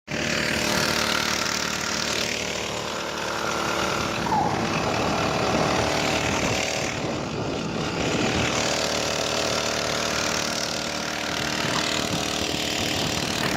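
Small gas engine of a motorized bike running steadily.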